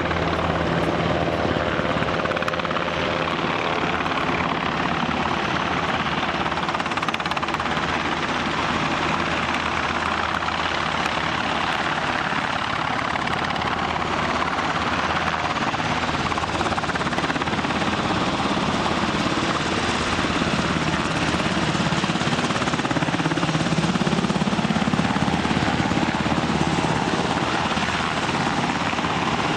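UH-60J Black Hawk rescue helicopter's rotor and engines running steadily in flight. The sound grows louder about two-thirds of the way in as the helicopter comes close and hovers with rappel ropes down.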